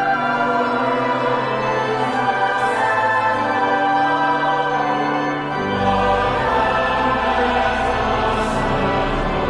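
A choir singing with organ, echoing in a large stone chapel. A deep bass comes in about six seconds in.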